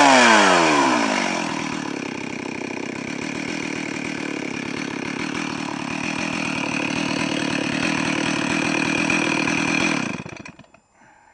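Stihl 038 Farm Boss AVS chainsaw's two-stroke engine falling from a rev to a steady idle, then cutting off suddenly near the end as it is shut down.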